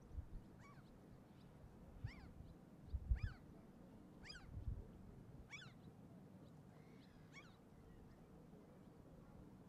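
Gulls calling: about six short, high cries spaced one to two seconds apart, over a low rumble of wind and a few low thumps on the microphone, the loudest about three seconds in.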